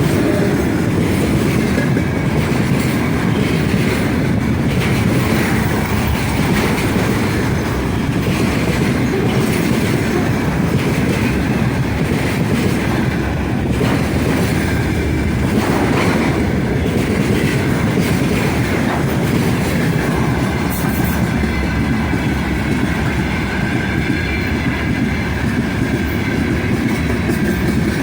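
Freight train wagons behind a 3ES5K Ermak electric locomotive rolling past at speed: a steady loud rumble of wheels on rails with clickety-clack over the rail joints. A faint high wheel squeal comes in near the end.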